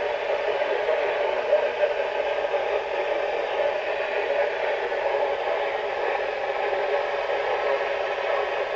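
Steady radio static: an even hiss from a radio receiver, unchanging throughout.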